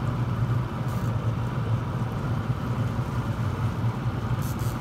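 Boat engine running steadily at low trolling speed, a constant low hum with a wash of wind and water noise.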